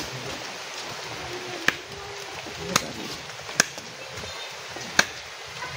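Four short, sharp knocks spaced about a second apart over a steady faint background hiss.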